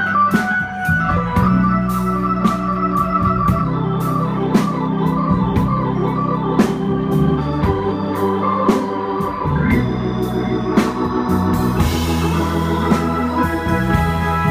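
Hammond organ playing sustained chords and lines in a live band, with drums keeping time behind it; cymbals get brighter near the end.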